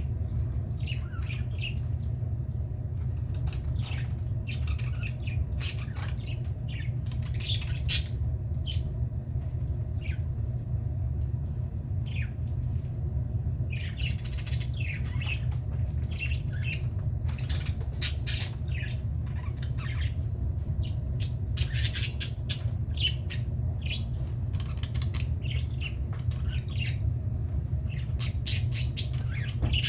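A flock of budgerigars chattering, with rapid short squawks and chirps coming thick and fast, over a steady low hum.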